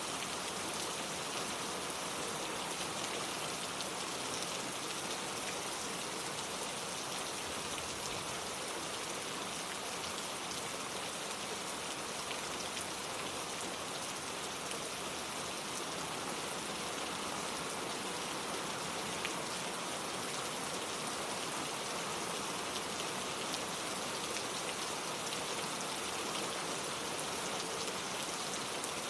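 Steady rain falling, a dense even hiss of drops with faint scattered patters on surfaces.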